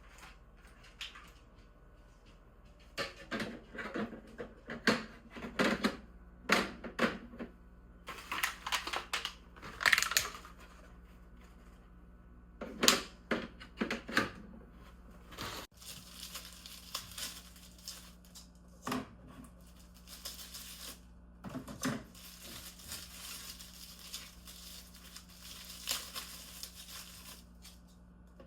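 Crinkling, crushing and tearing of paper or packaging with handling knocks, busiest in the first half; from about halfway a steadier hiss runs under a few more knocks.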